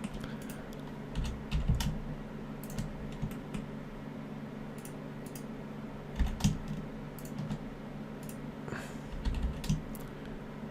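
Computer keyboard keys tapped in short, irregular clusters, over a steady low hum.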